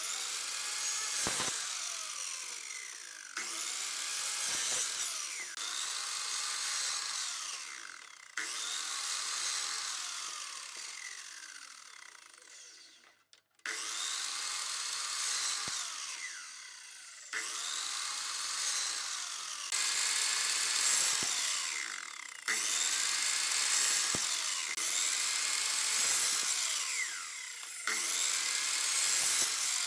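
A tool working wood, a steady abrasive noise of cutting or rubbing on wood, heard in a string of short clips that start and stop abruptly every few seconds.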